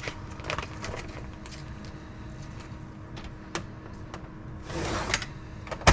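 Vacuum sealer's pump running with a steady hum as it draws air out of the bag. A short hiss comes about five seconds in and a sharp click at the end.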